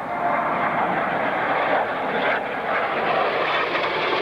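Lockheed F-117A Nighthawk's two General Electric F404 turbofans, a steady jet rush as the stealth fighter makes a pass over the airfield.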